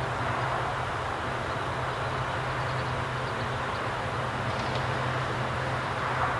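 Manifest freight train rolling past: a steady rush of wheels on rail with a low hum underneath.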